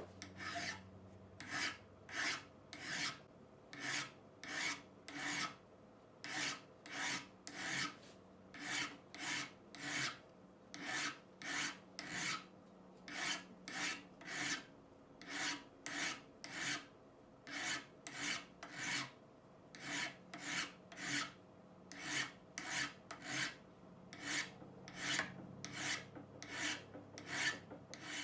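Steel edge iron worked by hand with an abrasive, a steady run of back-and-forth strokes at about one and a half a second, cleaning rust off the tool.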